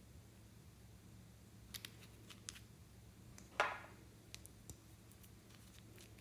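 Light clicks of a small glass bottle and its plastic cap being handled, then a short scraping rattle a little past halfway as the cap is twisted and pulled off.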